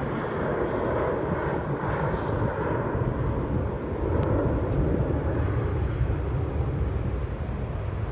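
Jet engines of an Airbus A321 climbing out after takeoff: a steady, deep rumble that grows stronger about halfway through.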